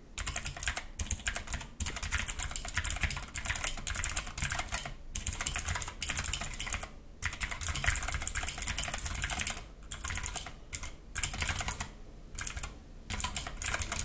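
Fast touch-typing on an Ajazz AK33 mechanical keyboard: a dense, continuous run of key clicks, broken by a few short pauses.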